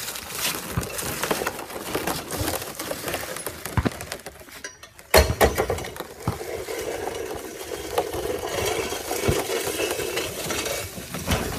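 Footsteps crackling through dry leaves on asphalt. After a break, a wheeled machine starts with a loud burst and runs steadily, pushing through the leaves.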